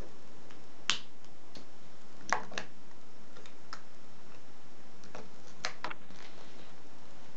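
About six sharp, separate clicks, some in close pairs, from hands working at the burner of a model Stirling engine.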